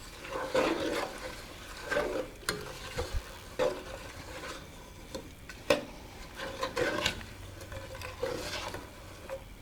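Stirring a thick icing mixture of butter, sugar, evaporated milk, coconut and pecans in a saucepan, with irregular scraping and a few sharp clinks against the pan.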